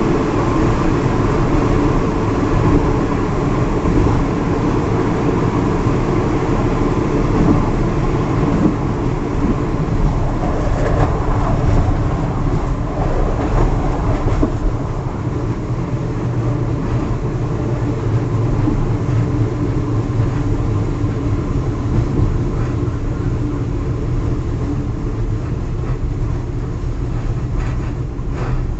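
Steel wheels of a moving express train clattering and rumbling on the rails, heard at the open rear end of the last car. Around the middle the clatter turns rougher as the wheels run over a set of points.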